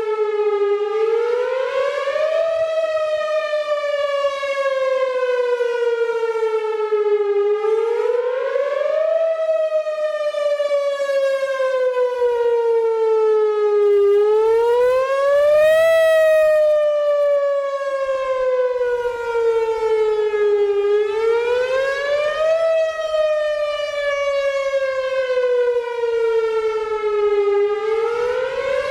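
Whelen Vortex electronic outdoor warning siren sounding a wail test. The tone rises quickly, then falls slowly, and the cycle repeats about every seven seconds, four times over.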